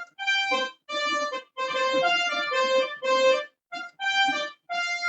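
Electronic keyboard on a brass-section patch playing a short phrase of punchy notes and chords with brief gaps between them, some hit harder and some softer to show strong and weak accents.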